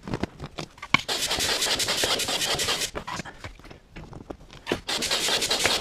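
Air rushing through a pump hose into the inflatable side chamber of a folding kayak. It comes as two long stretches of loud hissing with a gap between them, and the whole is played four times faster than life.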